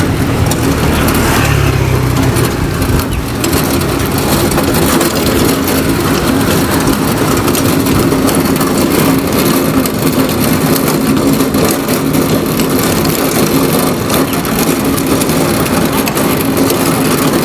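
Steady loud rolling and rattling noise of a small vehicle moving along a paved street, with a steady low hum under it.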